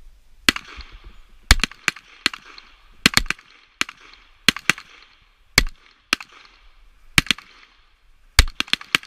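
Pistol shots from several shooters firing together in a timed series: about twenty sharp cracks at irregular spacing, some landing in quick clusters of three or four, each followed by an echoing tail.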